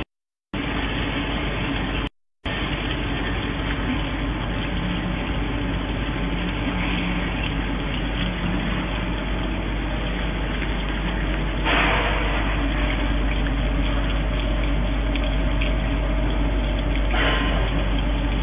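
CNC plate drilling machine running as its spindle taps threaded holes in a metal plate under a spray of coolant: a steady mechanical din over a low hum. It cuts out abruptly twice in the first few seconds and gets hissier about twelve seconds in.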